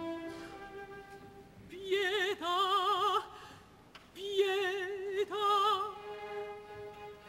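Operatic soprano singing two short phrases with a wide vibrato, about two and four and a half seconds in, over soft sustained orchestral strings.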